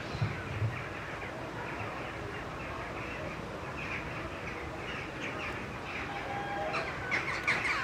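Small birds chirping, many short falling chirps over a steady outdoor background hum, thickening into a busy burst of chirps near the end. A couple of dull low thuds come in the first second.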